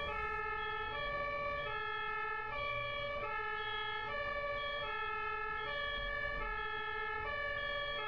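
German ambulance's two-tone siren (Martinshorn) sounding on an emergency run, alternating evenly between a lower and a higher tone, each held about two-thirds of a second.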